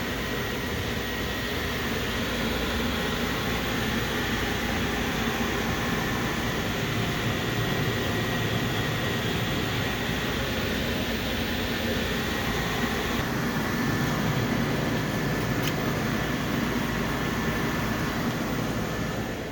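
Furnace running: a steady whooshing hum with a faint, steady high-pitched whine, and a single click about three-quarters of the way through.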